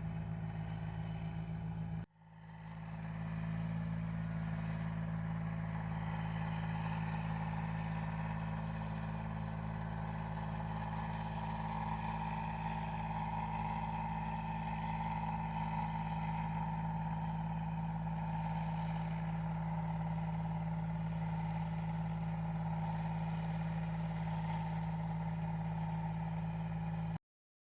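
Rice combine harvester running steadily: a low engine drone with a higher, steady mechanical whine. The sound drops out about two seconds in, fades back up, and cuts off abruptly near the end.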